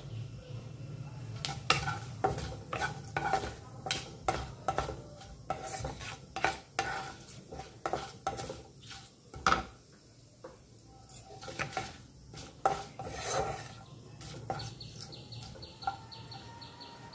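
A wooden spatula stirring and knocking against a nonstick kadai, in irregular clicks and scrapes, while whole spices (panch phoron, a dried red chilli and bay leaves) sizzle faintly in the hot oil. A steady high tone joins near the end.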